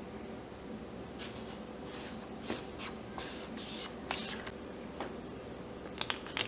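Chef's knife slicing through a whole tomato on a plastic cutting board: a run of short scraping strokes as the blade saws back and forth, then sharper clicks about six seconds in as the blade reaches the board and the slice comes away. A faint steady hum lies underneath.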